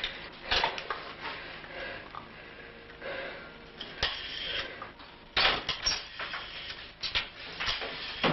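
An old rotary telephone handled on a wooden counter: irregular knocks and clicks as the receiver is lifted and the dial is worked, with a brief faint steady tone partway through. Louder knocks of a door follow near the end.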